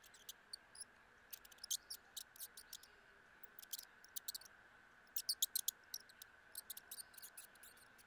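A mouse at a plastic bowl smeared with peanut butter, making quick high-pitched ticks and chirps in irregular clusters. The loudest run comes a little past the middle.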